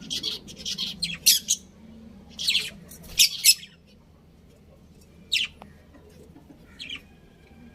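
Budgerigars chirping: quick clusters of sharp, high chirps in the first few seconds, then single chirps spaced a second or more apart.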